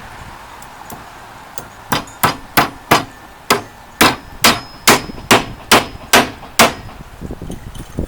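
Hammer driving a steel wedge bolt home into a Hog Head rod clamp: about a dozen sharp, ringing metal-on-metal strikes, a little over two a second, starting about two seconds in.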